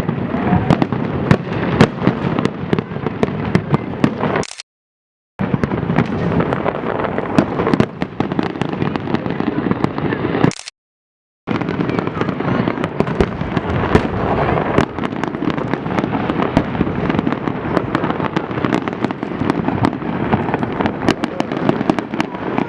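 Fireworks display: a dense, continuous barrage of bangs and crackling shell bursts over a rumbling background. The sound cuts out completely twice, each time for under a second.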